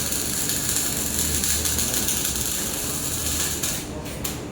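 Handheld air-cooled laser welder running a wire-fed weld on aluminum: a steady high hiss that cuts off suddenly near the end as the trigger is released, leaving the machine's lower hum.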